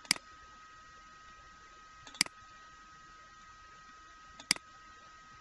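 Three single computer mouse clicks about two seconds apart, over a faint steady high-pitched hum.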